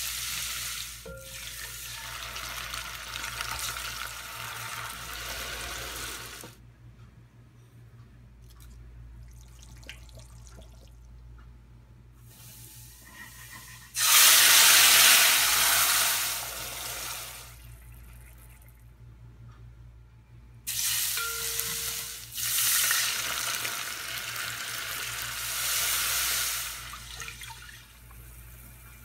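Garlic sizzling in hot oil in a pot, then a sudden, loud hiss about halfway through as tomato sauce is ladled into the hot pot, dying down over a few seconds. More sizzling comes in the last third as liquid is added to the sauce, over a steady low hum.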